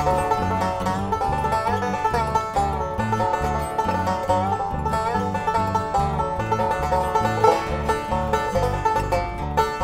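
Banjo playing a bluegrass tune, quick plucked notes over an alternating bass line.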